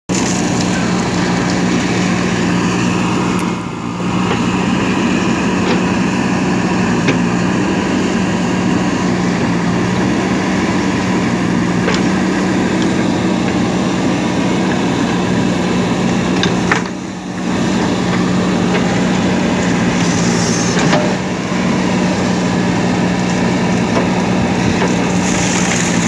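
JCB 3DX backhoe loader's diesel engine running steadily under load as the backhoe arm digs, with a few light knocks. The engine sound dips briefly twice.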